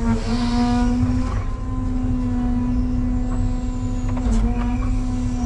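Electric Cat 320 Z-Line excavator heard from inside the cab: its electric motor and hydraulic pump give a steady hum over a low rumble while the bucket dumps soil into a dump trailer. The hum dips briefly a little past four seconds as the hydraulic load changes. A rush of soil spilling into the trailer is heard near the start.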